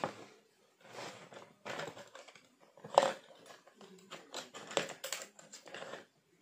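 Kitchen utensils rattling and clicking against each other in a utensil holder as they are rummaged through and pulled out, with one sharp knock about three seconds in.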